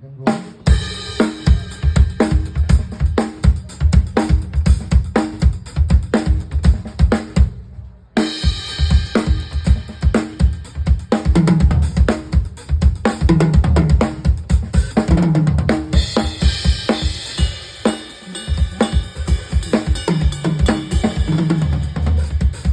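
Drum kit played in a steady groove: bass drum, snare, hi-hat and cymbals. The playing stops briefly about eight seconds in and then picks up again.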